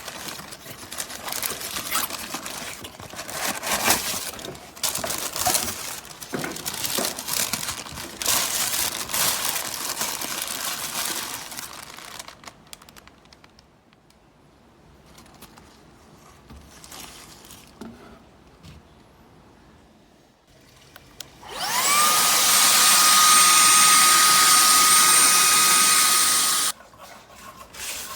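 Shark Detect Clean & Empty vacuum motor spinning up quickly to a loud, steady whine, running for about five seconds, then cutting off abruptly. Before it comes a longer stretch of irregular rustling and clattering handling noise.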